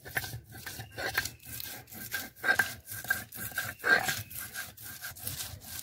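Spice paste being ground on a flat stone slab with a stone roller (shil-nora): repeated scraping, rubbing strokes of stone over wet paste, about three a second.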